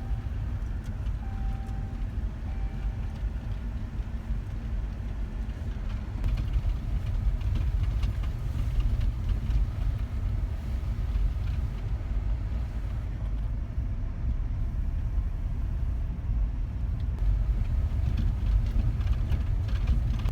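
Car driving on the road, heard from inside the cabin as a steady low rumble of engine and road noise. A few faint short beeps sound in the first couple of seconds.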